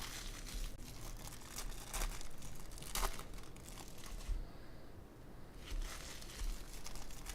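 Crinkling and tearing of plastic and foil trading-card packaging as a box of baseball cards is unwrapped and opened, in a run of rustling bursts with a short lull about two-thirds of the way through.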